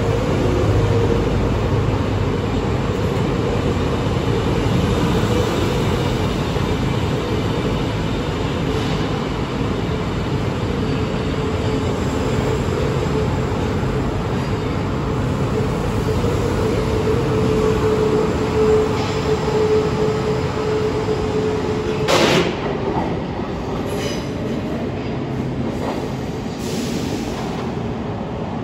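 Los Angeles Metro Red Line subway train (Breda A650 cars) pulling out of the platform: continuous rail running noise with a steady whine. There is a single sharp clank about 22 seconds in, and the sound eases off near the end as the train goes into the tunnel.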